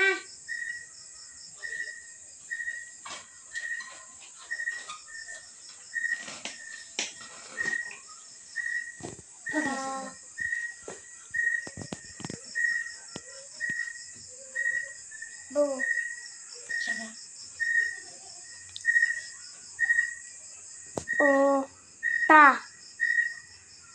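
Insects chirping: a steady high trill, with a short high note repeating evenly about once a second.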